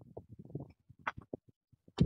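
Faint, irregular metal clicks and taps as gloved hands work a stiff cotter pin into the lift-link pin of a tractor's three-point hitch, with a couple of sharper clicks about a second in and near the end.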